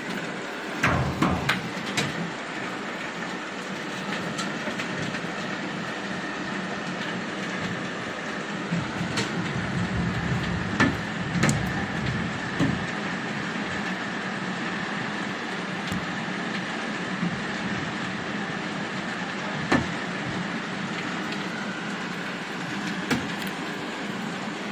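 Hail pelting down in a steady rushing noise, with scattered sharp ticks of hailstones striking close by: several in quick succession about a second in, a run more around the middle, and single ones later.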